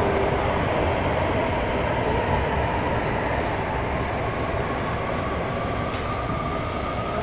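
AS-14 metro train running through a tunnel into a station, heard from inside the car: a steady rumble and rolling noise that eases off slowly as the train slows. A thin whine rises slightly near the end.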